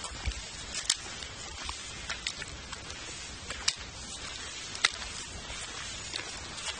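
Steady outdoor hiss with a few scattered sharp clicks from the hand-held camera being handled.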